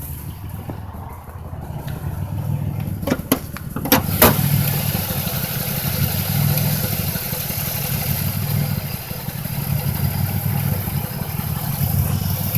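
2005 Chevy Impala's 3800 V6 idling with an uneven, stuttering rhythm: a misfire that sets code P0305 on cylinder 5 and has survived a new spark plug, plug wire and injector. A few sharp clicks come about three to four seconds in.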